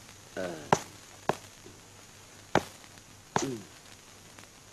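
Four sharp, separate knocks at irregular spacing, with a brief low voice sound around the first and the last.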